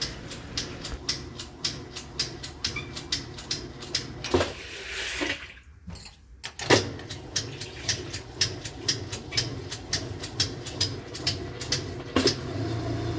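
Whirlpool-built Kenmore washing machine on a spin setting, its motor giving a low hum and a fast run of repeated clicks without getting going, with a short lull about halfway. The owner takes it for a clear motor fault.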